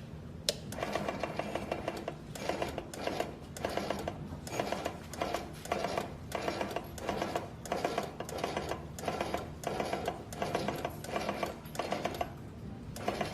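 Automatic mask body feeder and ear-loop welding machine running in cycles. It makes a clattering burst of quick mechanical clicks about once a second, then stops about a second before the end.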